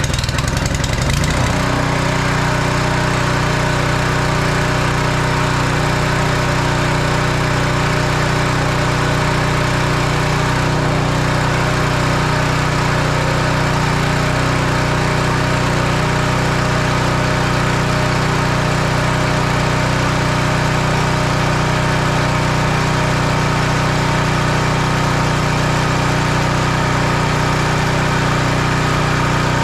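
Small gasoline engine of a Simpson pressure washer catching in the first second or so, then running steadily on its newly replaced carburetor.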